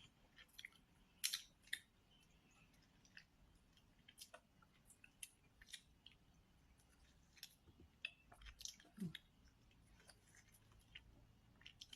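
Near silence broken by faint, irregular small clicks, about a dozen of them scattered through the stretch.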